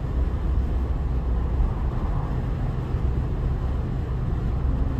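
2024 Porsche Macan GTS cruising at road speed, heard from inside the cabin: a steady low rumble of tyre and engine noise.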